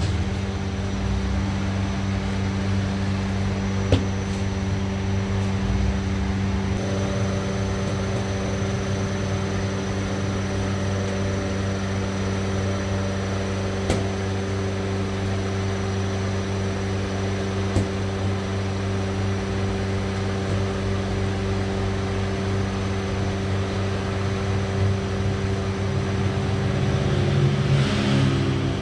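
Steady hum of running bakery machinery, an electric motor drone holding a few constant tones, with a few soft knocks now and then.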